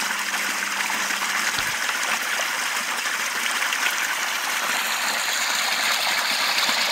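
Small forest stream running over stones, a steady trickling rush of water close by.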